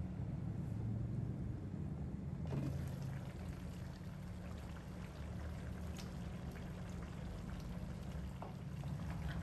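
Pork menudo sauce simmering in a stainless steel wok, a bubbling hiss over a steady low hum. About two and a half seconds in the bubbling turns suddenly brighter, with scattered small pops, as the lid comes off the pan.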